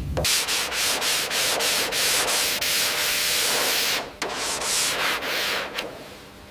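Abrasive sanding of a surface: a steady gritty hiss for about four seconds, then a few shorter strokes that die away near the end.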